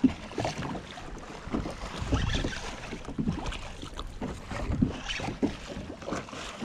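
Wind buffeting the microphone and water slapping against the kayak hull, with scattered irregular knocks.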